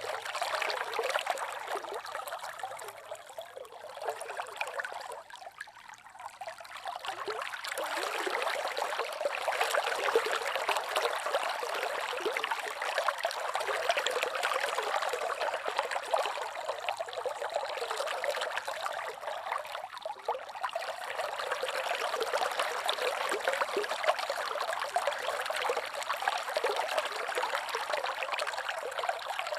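River water trickling and babbling steadily, a dense fine splashing; it eases off for a few seconds about four to six seconds in, then picks up again.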